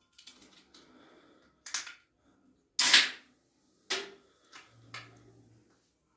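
An aluminium beer can being handled and opened: several sharp clicks of the pull tab, the loudest about three seconds in with a short hiss after it.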